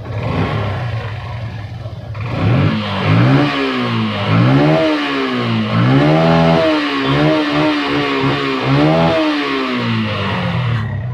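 Yamaha FZ motorcycle engine idling, then blipped through six or seven revs in a row, each rising and falling back. It runs smoothly after a carburetor cleaning that cleared carbon deposits and cured its hard starting.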